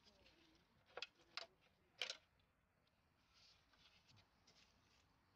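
Three short, light knocks as the valve cover of a Fiat Punto's 1.1 FIRE engine is lifted off the cylinder head, against near silence.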